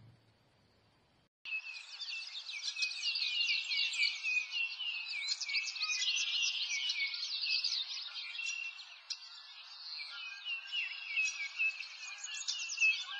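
Near silence, then about a second and a half in a dense chorus of many small birds chirping starts abruptly and keeps on, with a faint hiss beneath it.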